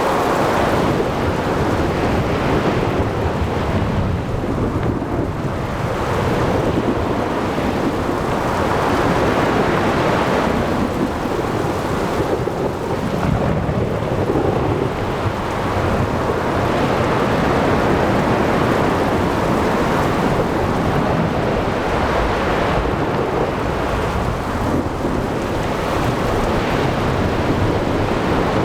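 Thunderstorm: continuous low rolling thunder over steady heavy rain, swelling and easing every few seconds, with no sharp cracks.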